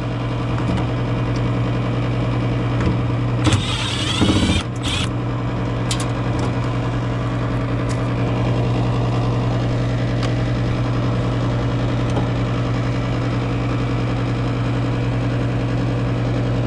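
Steady low machine hum with a few overtones above it. About three and a half seconds in comes a brief louder, noisier sound whose pitch slides, lasting about a second and a half.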